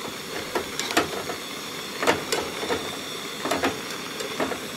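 A spoon clinking and scraping against a small metal cooking pot as mixed vegetables are stirred, a handful of irregular light knocks, over the steady hiss of a Primus Firehole gas camp stove burning.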